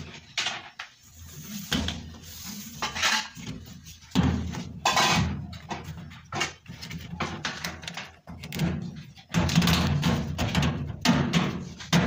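Irregular knocking, scraping and rustling as a washing machine's corrugated plastic drain hose is handled and pushed into place against the machine's cabinet.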